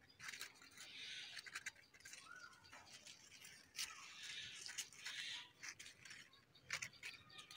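Faint rustling of fig leaves and twigs, with scattered light clicks, as a hand reaches into the branches and picks a ripe fig.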